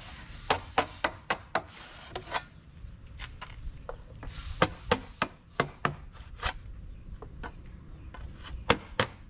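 Small hammer striking a chisel wedged at the seam of a large hexagonal planter mold, prying a mold panel off the cast concrete. Sharp metallic taps come in quick runs of a few, about three or four a second, with short pauses between the runs.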